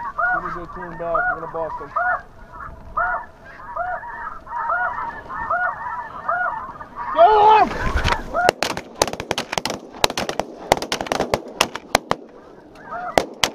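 Snow geese calling, many overlapping high honks repeating about twice a second. About eight seconds in, several 12-gauge shotguns fire a rapid volley of many sharp shots over roughly four seconds as the flock decoys overhead.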